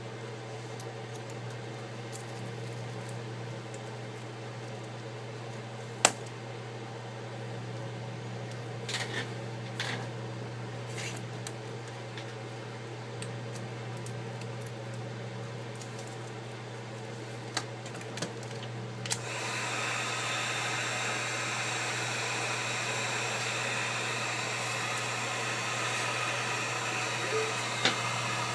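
Small clicks and taps of tools on the iPad's glass over a steady low hum, then about two-thirds of the way through a heat gun switches on and blows with a steady rushing hiss.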